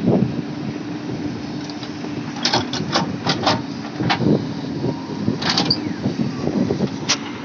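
JCB backhoe loader's diesel engine running steadily, with a series of sharp knocks: several quick ones in a cluster about two and a half seconds in, then two more later.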